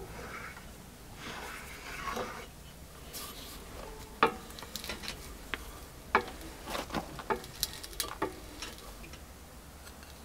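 Cast-iron bench vise being cranked tight on wooden blocks that press a brass lure blank. Soft handling rustle, then from about four seconds in a run of sharp, irregular clicks and creaks.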